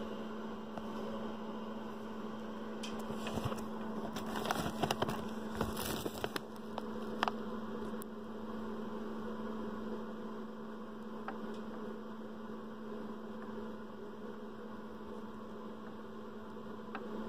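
Steady electrical hum. About three to seven seconds in, a cluster of small clicks and crackles rises over it.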